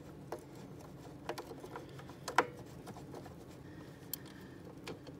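Light, scattered metal clicks and taps as a nut and washer are worked by hand onto the exhaust-shield bolt of a 1976 Yamaha GS340 snowmobile engine. The sharpest click comes about two and a half seconds in.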